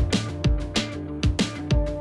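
Background music with a steady beat: drum hits about twice a second over sustained pitched notes.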